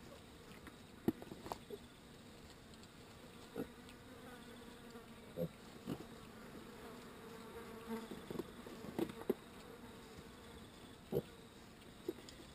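Steady low buzzing of flies, with several short piglet grunts and straw rustles scattered through it.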